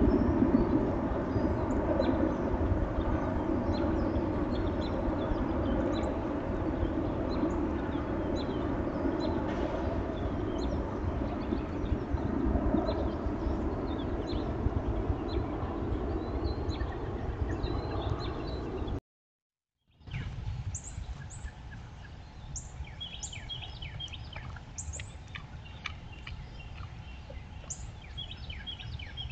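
A steady rushing outdoor noise with a low rumble for most of the first two-thirds. After a brief cut, small birds chirp repeatedly in short, high, falling calls over a quieter background.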